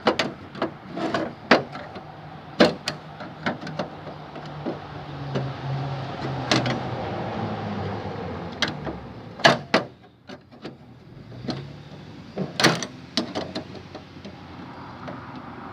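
Sharp clicks and knocks of small metal parts of an old lock set being handled and fitted during a latch repair, irregular throughout, with a low hum for a few seconds in the middle.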